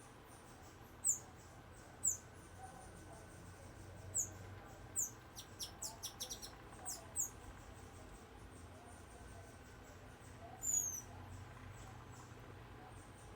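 Saíra-amarela (burnished-buff tanager) giving thin, very high, down-slurred call notes, one every second or so, with a quick run of short clicking notes about six seconds in and a longer note near eleven seconds.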